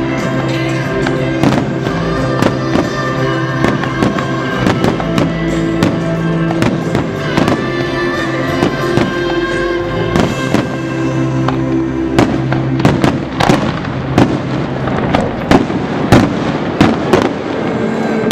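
Aerial firework shells bursting in rapid succession, with many sharp bangs and crackling, over music with long held notes. The bangs come thicker and louder in the second half.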